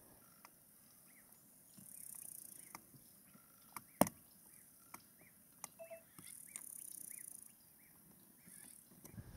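Faint bush ambience: a bird repeating a short chirp about twice a second, with two brief bursts of high insect buzzing and a few sharp clicks, the loudest about four seconds in.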